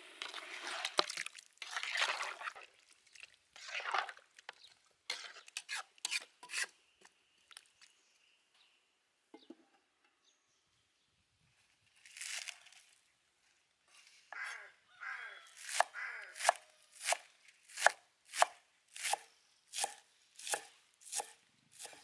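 Chef's knife chopping green onions on a round wooden chopping board: after some scattered knocks and scrapes and a short quiet spell, the blade strikes the board in a steady rhythm of about three strokes every two seconds through the second half.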